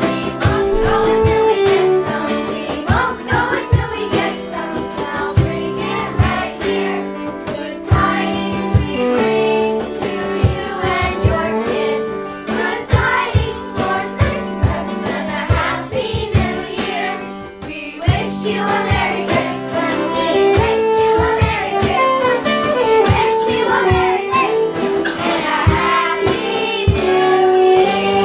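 Children's choir singing a Christmas song live, accompanied by a small band with strummed guitar.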